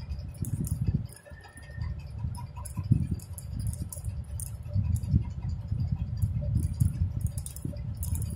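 Crochet hook and wool yarn being worked by hand: irregular small clicks and a soft rubbing, over a low, uneven rumble of handling noise close to the microphone.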